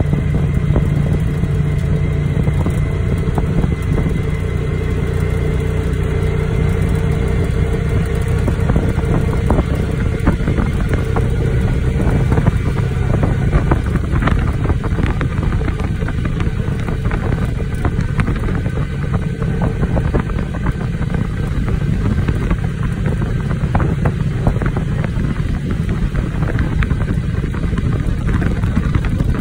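Motor vehicle travelling along a paved road: a steady low engine hum under wind buffeting the microphone. The engine's steady note stands out most in the first several seconds.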